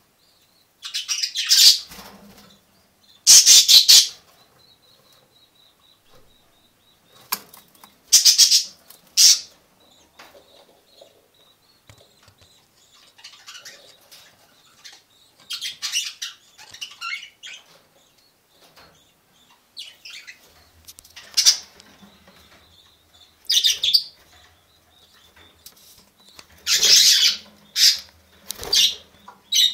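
Budgerigars fluttering in an aviary: short bursts of wing flapping, several times, with faint high chirping between them.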